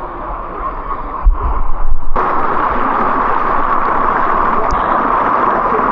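Rushing water of a rocky creek cascade, a steady loud rush; a few low thumps come about a second in, and the rush jumps suddenly louder about two seconds in.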